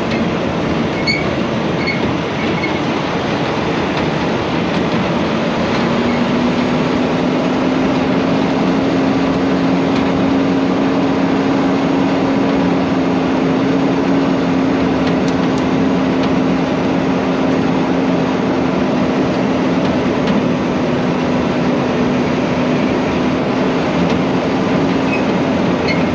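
Dump truck driving, heard from inside the cab: a steady engine drone over road and rattle noise. The engine note rises slightly about five seconds in and then holds steady.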